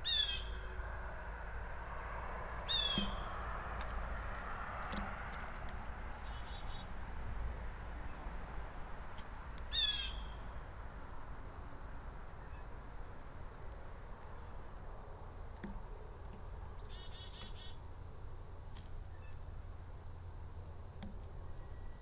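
Blue jay giving three short, harsh calls: one right at the start, one about three seconds in and one about ten seconds in. Other small birds chirp faintly in between.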